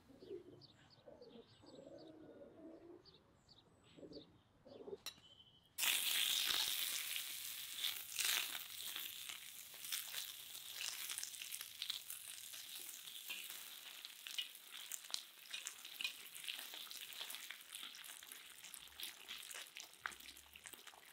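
Cubes of fat sizzling as they fry in a hot kazan, stirred with a metal skimmer that scrapes and clicks against the pan. The sizzle starts abruptly about six seconds in; before that, only faint bird chirps.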